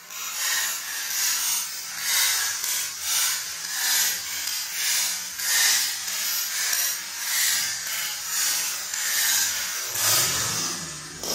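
3x3 speed cube being turned, its plastic layers sliding and scraping, heard slowed down to a tenth of real speed. The rapid turns of a sub-one-second solve are drawn out into a long, even series of swishes, roughly one a second.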